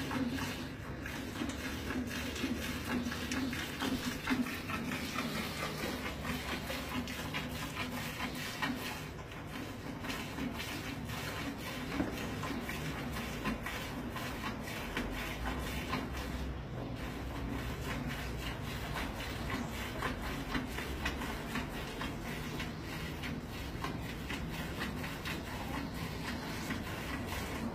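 Hand milking a Holstein cow: milk squirting from the teats into a metal pail, in a quick, steady rhythm of strokes.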